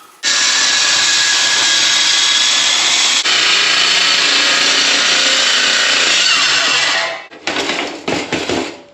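A power tool cutting aluminum sheet. It runs steadily for about seven seconds, then comes in a few short bursts near the end.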